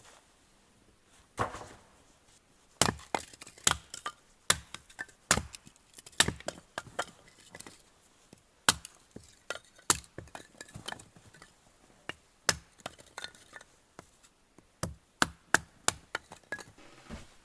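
Wood being struck: an irregular series of sharp knocks and cracks, often several a second, starting after a short pause.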